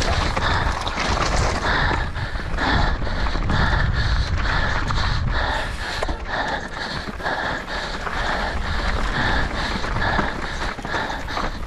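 A mountain biker breathing hard while racing, with quick, rhythmic panting over a steady rumble of wind and the bike on the trail.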